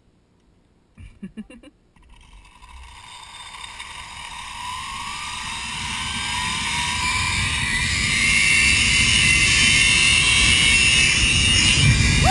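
Zip-line trolley pulleys running along the steel cable. The whir builds steadily louder and rises in pitch as the rider picks up speed, then holds at full speed, with rushing air. A few short clicks come about a second in, just before it starts.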